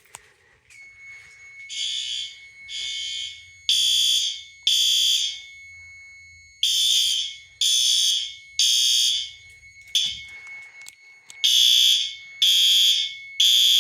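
Fire alarm horns sounding together in sync, pulsing loudly about once a second in groups with longer pauses between the groups, over a steady high-pitched tone.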